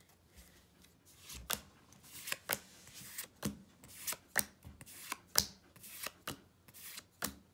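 Pokémon trading cards being flipped through by hand, each card slid off the front of the stack with a short click, about two a second, starting about a second in.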